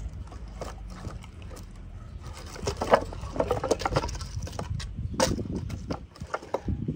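Split wooden planks and firewood knocking and clattering as they are picked up and stacked, with a run of sharper wood-on-wood knocks from about three seconds in.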